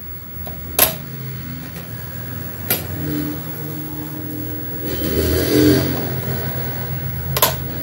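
Three sharp clicks of the hard plastic housing of a JBL portable speaker being pried apart at its catches with a screwdriver, about a second in, near three seconds and near the end. Under them runs a steady low hum that swells about five seconds in.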